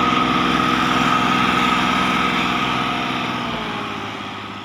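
Al-Ghazi tractor's diesel engine running steadily under load in a tug-of-war pull against a pickup truck. The sound fades away over the last second or so.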